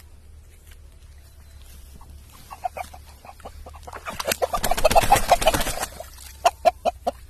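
Fighting-breed rooster squawking in short, sharp distress calls as it is held and handled. There is a loud flurry of struggling and squawks from about four to six seconds in.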